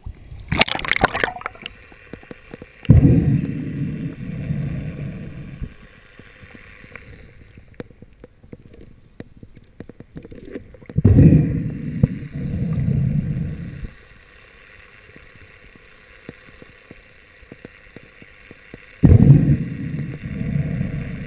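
A short splash about half a second in, then a freediver's slow, heavy breaths through a snorkel: three breaths several seconds apart, each a long draw and release, with faint clicks of gear and line between them.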